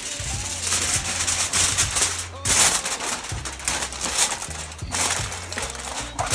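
Aluminium foil crinkling and crackling as hands crimp it down over the rim of a cooking pot, loudest about two and a half seconds in. Background music with a bass line runs underneath.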